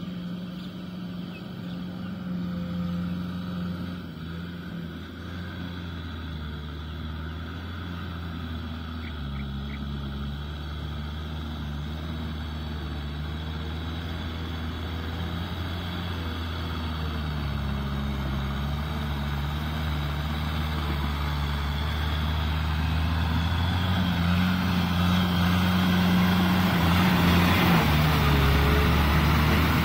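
Kubota M6040SU tractor's four-cylinder diesel running steadily under load while pulling a rotavator through wet mud, growing louder as it comes closer. Near the end the churning and splashing of mud from the wheels and tiller rises over the engine.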